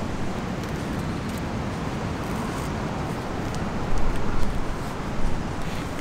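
Steady outdoor wind noise over a low rumble, with gusts buffeting the microphone about four seconds in.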